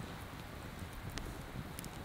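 Steady low outdoor rumble with two faint sharp clicks, about a second in and near the end.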